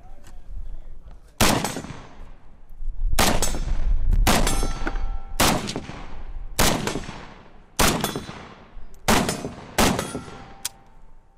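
Century Arms full-size Draco, an AK-pattern pistol in 7.62×39, firing about eight single shots roughly a second apart, each followed by a short fading echo.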